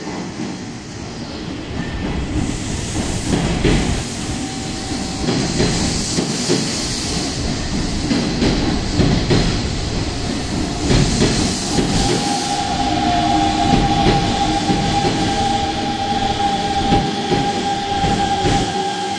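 Hanshin 1000 series electric train pulling out and running away over the station pointwork, its wheels clacking over joints and points. A steady high-pitched tone comes in about twelve seconds in.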